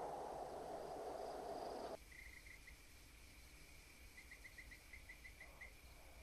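Soft desert wind ambience that cuts off abruptly about two seconds in. It gives way to a faint night ambience with short, high insect chirps in quick runs.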